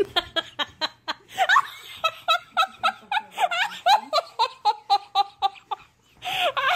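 A person laughing hard in quick, high-pitched bursts, about five a second, breaking off briefly near the end and then starting again.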